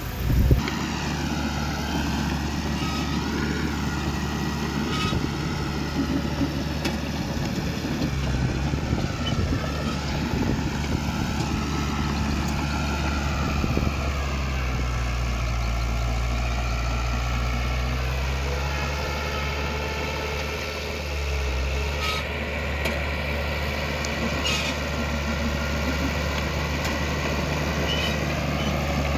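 Heavy diesel engine of earthmoving machinery running steadily. Its pitch dips and shifts as the load changes partway through, with a wavering higher whine above it and a few short clicks.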